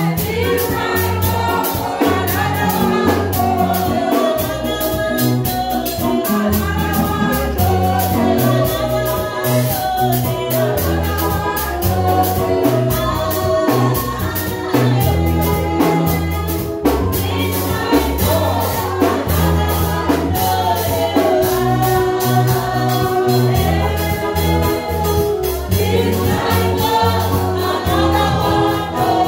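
Gospel praise music: a choir singing over changing bass notes and a steady beat.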